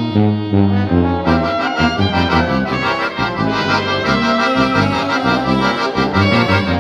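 A small band of trumpets, trombone, alto saxophone, tuba and accordion playing a tune together over a pulsing bass line. The sound grows fuller about a second in as more of the band joins.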